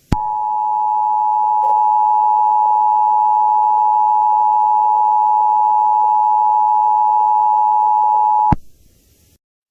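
Emergency Alert System two-tone attention signal from a weather radio: two steady tones sounding together just below 1 kHz. It holds level for about eight and a half seconds, starting with a click and cutting off abruptly. It marks the start of a new alert.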